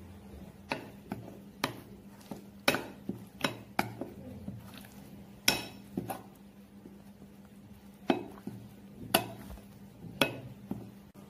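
Metal spoon stirring a thick, wet spice paste in a bowl. The spoon knocks and clinks against the bowl irregularly, more than a dozen times, with a pause of about a second and a half near the middle.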